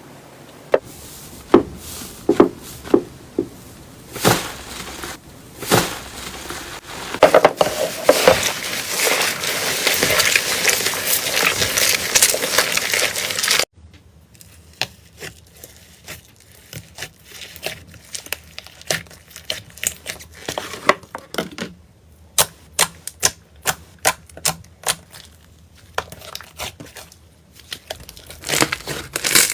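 Slime being squeezed and poked by hand, making crackling and popping sounds. About halfway through, dense crinkly crackling cuts off suddenly and gives way to sparse, quieter pops.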